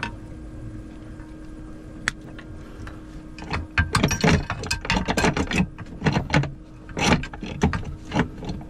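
Metal clanking and rattling from about three and a half seconds in, a run of irregular knocks as the old Simrad HDL350 autopilot linear drive is handled and worked loose from its mount. Before that a steady low hum runs and stops.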